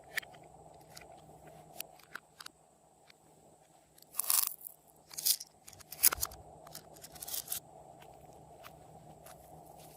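Store-bought slime being squished and worked by hand: scattered small clicks and pops, with a few louder sticky squelches and crackles a little past the middle.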